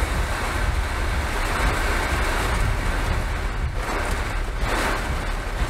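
Derecho wind and torrential rain pounding a parked car, heard from inside the cabin as a dense, steady rush of noise with a low rumble of wind buffeting the body.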